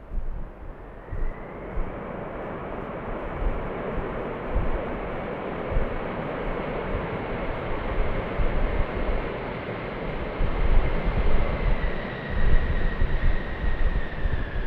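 Boeing 747-400F's four jet engines roaring as the freighter passes, the roar swelling over the first seconds with a high whine that sinks slightly in pitch near the end. Wind gusts buffet the microphone.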